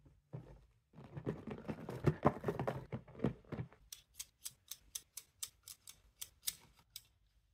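Plastic children's safety scissors snapping open and shut in the air, a quick run of sharp clicks at about four a second. Before them, a stretch of rustling as the cellophane-wrapped toy box is handled.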